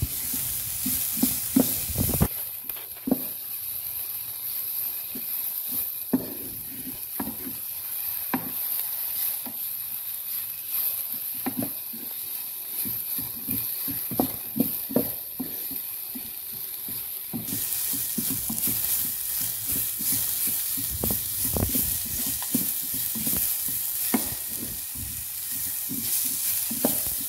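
Shredded cabbage with onions and garlic sizzling in oil in a pan, with a spatula scraping and knocking against the pan as it is stirred over and over.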